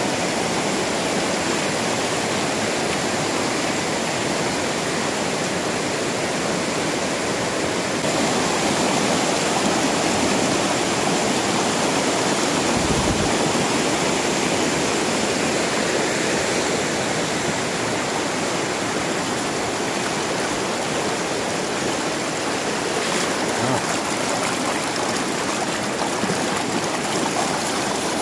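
Shallow river rushing over boulders in rapids, a steady wash of fast-flowing water.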